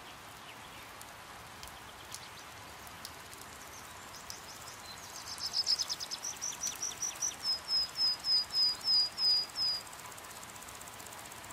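A bird sings a run of high, quick notes about halfway through: a fast trill, then a string of evenly spaced chirps about four a second that stop suddenly. Underneath is a steady hiss of rain.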